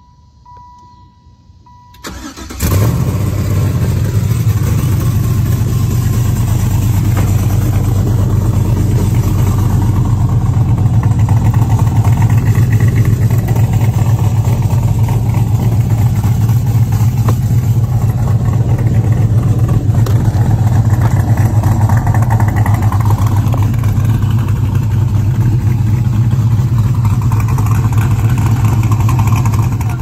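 Chevrolet Impala SS's LS-swapped V8, fitted with new mufflers, starts about two seconds in and then idles steadily and loudly through the exhaust. A little rattle comes from the electric exhaust cutouts, which are not working right; the owner puts this down to the fuse.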